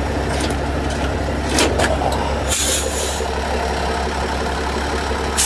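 Heavy truck engine idling steadily, with a brief burst of hissing about two and a half seconds in and another near the end.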